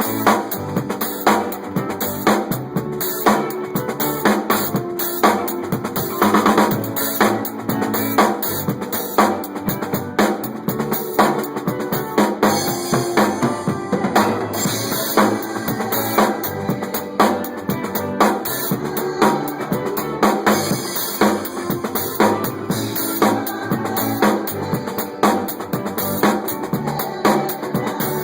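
Drum kit played in a steady groove, with bass drum, snare and rimshot strikes and a louder accent about once a second.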